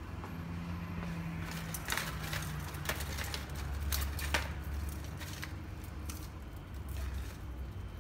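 Small plastic 3D-printed parts and a plastic tub being handled: a run of light clicks and rustles, busiest in the middle, over a low steady hum.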